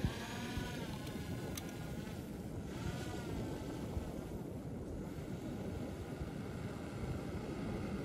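Steady rumble of wind buffeting the microphone, with two short wavering calls, one at the start and one about three seconds in.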